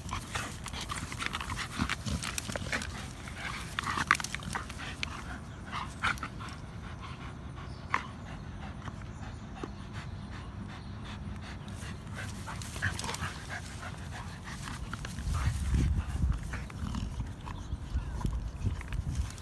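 American bully dogs panting, with scattered short clicks and scuffs; a louder low rumbling stretch comes near the end.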